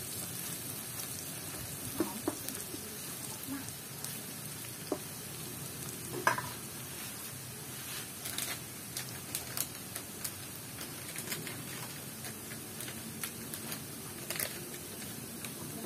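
Chopped garlic frying in oil in an aluminium wok: a steady sizzle with scattered sharp ticks, the loudest a little over six seconds in. It is being fried until fragrant, and a metal spatula stirs it at the start.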